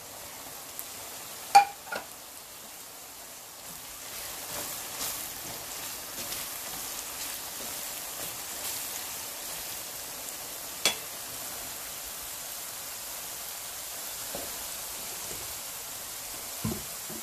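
Olive oil sizzling steadily in a pan as chopped ginger, garlic, green chillies and curry leaves fry, with red chilli, asafoetida and fenugreek powders just tipped in: the spice masala for lemon pickle being sautéed. A few sharp clicks break the hiss, the loudest about eleven seconds in.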